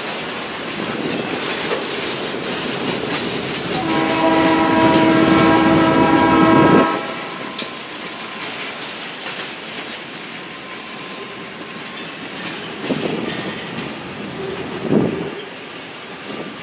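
Freight cars of a mixed freight train rolling past with steady wheel clatter on the rails. About four seconds in, a train horn blows one long blast of about three seconds and cuts off sharply.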